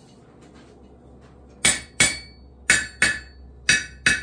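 Hand hammer striking a bare newer cast anvil with its noise damper taken off. Six sharp strikes come in three quick pairs, starting about a second and a half in, and each rings briefly with a clear high ring.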